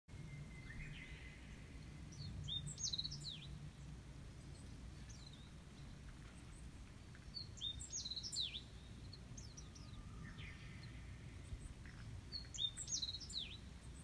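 A wild songbird singing the same short phrase of quick, high, sweeping notes three times, about five seconds apart, with a few fainter single notes in between.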